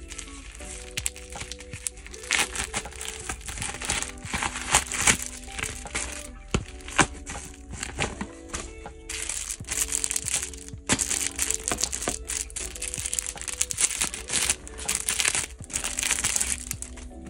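Plastic bubble mailer and clear poly bag crinkling and rustling as they are slit with a utility knife and handled, in irregular bursts that grow denser about halfway through, over soft background music with held notes.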